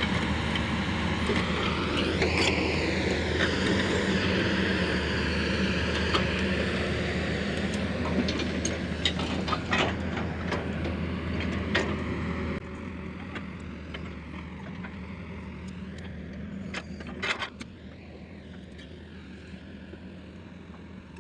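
Excavator's engine running steadily, with a brief rise and fall in pitch about two seconds in. Several sharp clicks or knocks come between about 8 and 12 seconds in and again near 17 seconds. The engine sound drops sharply in level about 12 seconds in.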